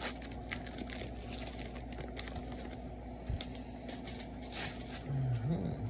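Small clicks and rustles of cardboard trading cards and pack wrappers being handled, over a steady low hum. A brief low murmur comes near the end.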